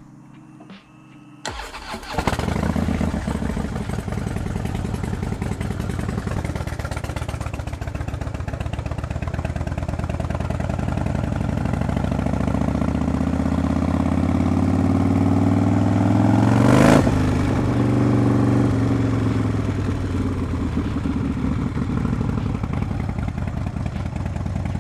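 Harley-Davidson Low Rider S V-twin engine starting about a second and a half in, then running, its pitch rising slowly to a peak about two-thirds of the way through and falling again as the bike accelerates and then eases off.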